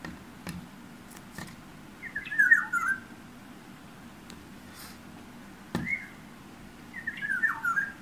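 Black-naped oriole calling at close range: two short phrases of bending whistled notes, about five seconds apart. Between them come a few sharp taps, its bill knocking on the window glass.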